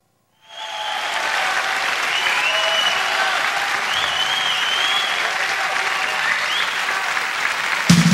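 Concert audience applauding and cheering, with whistles gliding up and down over the clapping. Near the end the band comes in with a sudden loud first chord.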